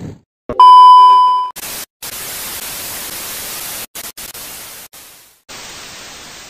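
A loud electronic beep, one steady tone lasting about a second, followed by hiss like TV static that cuts in and out several times, then runs on more evenly and begins to fade near the end.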